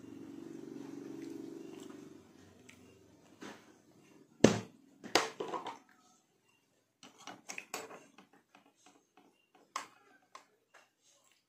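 Kitchen utensil clatter: a low hum at first, then a loud sharp knock about four and a half seconds in with a few more knocks right after, followed by a run of light clicks and scrapes of a metal spoon against the pot.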